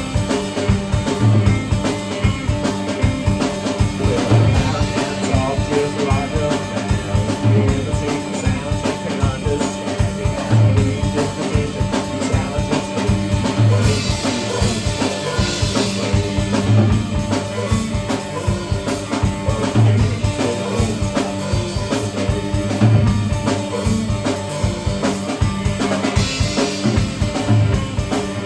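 Live band music without singing: a drum kit keeps a steady beat, with a low drum hit about every second and a half, under sustained pitched instrument tones.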